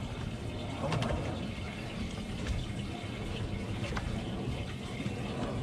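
Water running and splashing steadily into the boat's live well, with a few faint knocks about a second in and again near four seconds.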